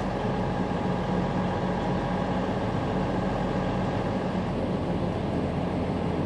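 Semi truck's diesel engine running at a steady speed as the truck rolls slowly, heard from inside the cab as a steady hum with road noise.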